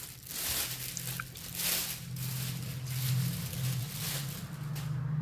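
Clear plastic bag crinkling and rustling in repeated handfuls as it is pulled off a sheet-metal fender skirt, over a steady low hum.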